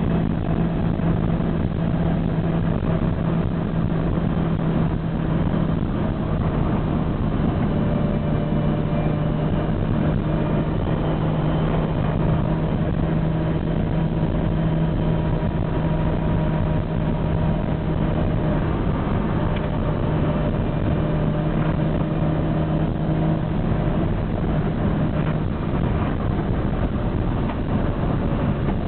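Lamborghini Miura's mid-mounted V12 engine running steadily while the car drives along at an even speed, heard from inside the cabin. Its note steps down slightly about five seconds in.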